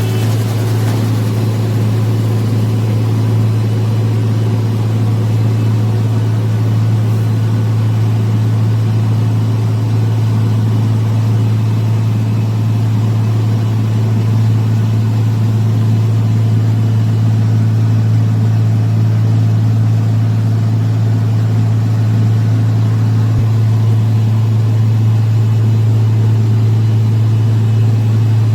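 Heavy road-works machine's diesel engine running steadily: a loud, unbroken low drone.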